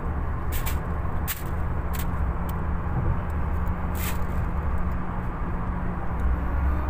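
Steady low road and engine rumble heard inside a car's cabin while driving at highway speed, with a few short clicks.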